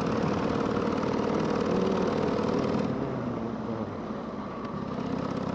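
Harley-Davidson Sportster V-twin engine running on the move; its note drops a little about three seconds in and picks up again near the end.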